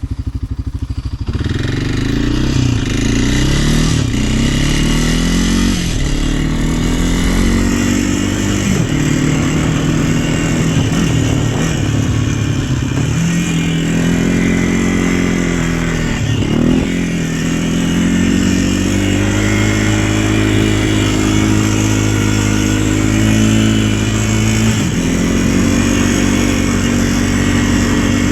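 A vehicle engine running under load: its pitch climbs and drops again every couple of seconds, as when accelerating through gears, then holds at a steadier speed for a stretch in the second half.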